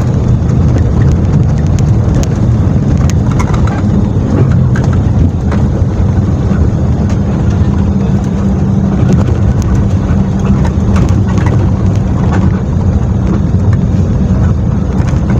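Inside a moving intercity bus: a loud, steady low rumble of engine and road noise, with scattered light rattles.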